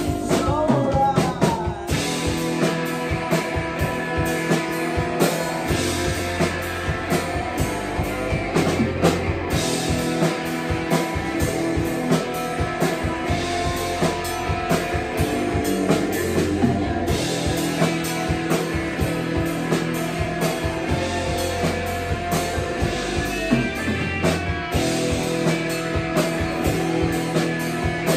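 Rock band playing live: drum kit hits on a steady beat under sustained bass and electric guitar notes.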